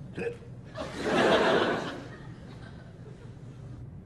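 Studio audience laughing in one burst lasting about a second, shortly after a brief short sound near the start.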